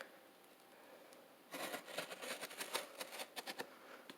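Cardboard box and packaging being handled and pulled open: a run of crackles and rustling starts about a second and a half in.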